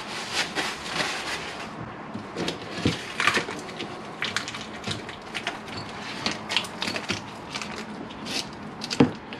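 Paper and card packaging rustling and crinkling as hands wipe on a paper towel and tear open a pack of brake pads, with many small irregular crackles and one sharp click about nine seconds in.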